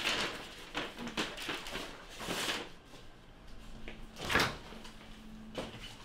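Kitchen handling sounds: a paper grocery bag rustling and items being set down, with a few knocks of cabinet and refrigerator doors. The loudest, about four seconds in, is the refrigerator door being opened.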